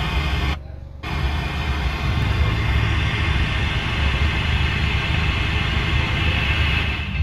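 FM radio static hissing from a Sansui car head unit tuned to a station it cannot receive, a sign of no antenna signal, which the installer suspects is an antenna not plugged into the radio port. The hiss drops out for about half a second near the start as a preset is switched, then carries on steadily.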